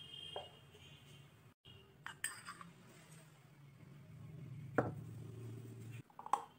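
A spoon clinking against a bowl a few times while spices and ginger-garlic paste are added, the sharpest clink a little before five seconds in, over a low steady hum.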